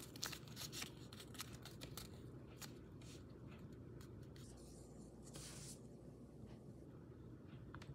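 A folded paper note being unfolded and handled: faint crinkling and crackling of the paper, densest in the first few seconds, with a short rustle a little past the middle.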